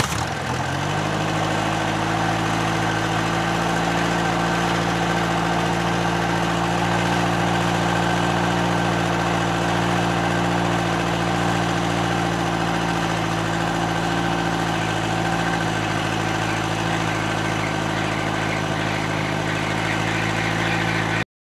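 Helicopter hovering: a steady engine and rotor drone that rises briefly in pitch at the start and then holds even. It cuts off abruptly just before the end.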